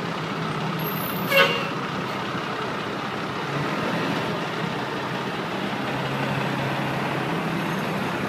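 Fire engine's diesel engine running with a steady low hum as the pumper rolls slowly past. About a second and a half in, a brief loud blast stands out over the engine.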